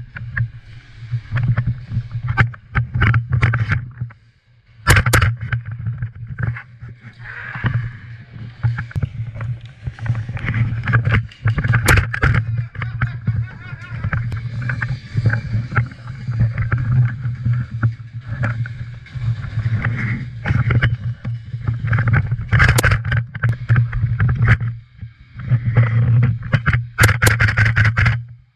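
Close rustling and knocking of movement against the microphone over a steady low hum, with a few sharp cracks about 5, 12, 23 and 27 seconds in.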